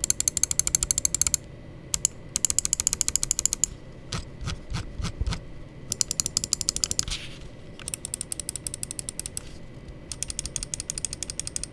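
Darmoshark M2 Daero gaming mouse buttons clicked in quick runs of about ten crisp clicks a second, with a few slower single clicks in the middle.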